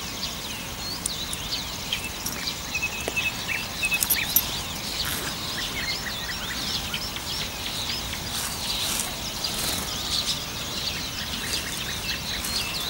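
Many small songbirds singing at once in a dawn chorus: dense overlapping chirps and trills, with a few sharp clicks about four seconds in.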